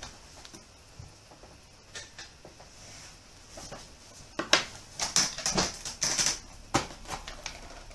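Small plastic pot being handled, shaken and knocked to get flies down into it. After a quiet stretch of faint handling clicks, a run of about five sharp clattering knocks comes in quick succession about four and a half seconds in.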